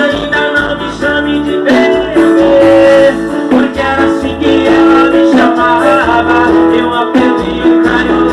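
Band music with plucked strings over a steady bass line.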